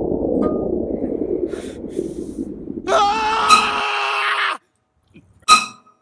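Horror-film sound design: a loud rushing swell, joined about three seconds in by a held, wavering, voice-like cry that cuts off suddenly. Two short ringing notes follow near the end.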